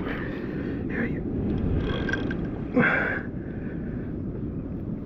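Steady low rumble of wind on the microphone, broken by a few short louder sounds about one, two and three seconds in, the last the loudest.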